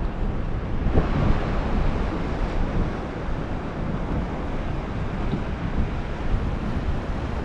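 Wind buffeting the microphone over open water, with waves lapping around a small fishing boat.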